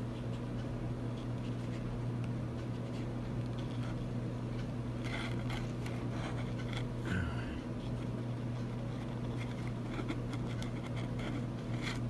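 Faint scratching and light clicks of fingers and a leopard gecko moving against a plastic deli cup, most of them about five to seven seconds in, over a steady low hum.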